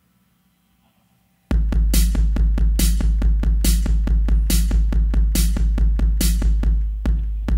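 Near silence, then about a second and a half in an electronic drum machine beat starts suddenly: a quick, steady low pulse with a sharp, bright hit a little more often than once a second.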